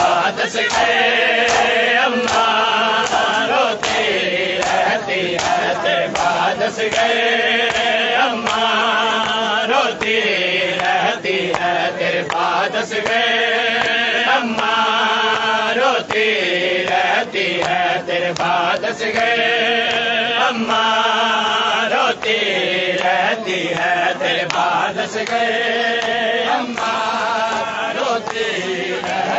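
A crowd of men chanting a nauha, a Shia lament, in unison, the same sung phrase coming round about every six seconds. Under the chant run the sharp slaps of hands beating bare chests in matam.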